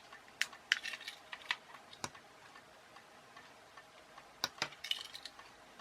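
Light, irregular plastic clicks from the remote control's buttons being pressed repeatedly and the receiver board being handled, while the door lock actuator stays latched and won't release.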